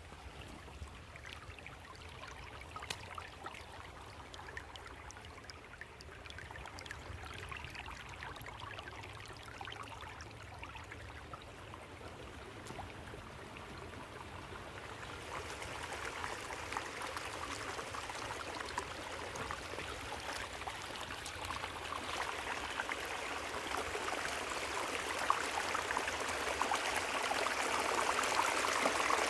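Creek water running, a steady rushing flow that grows louder over the second half.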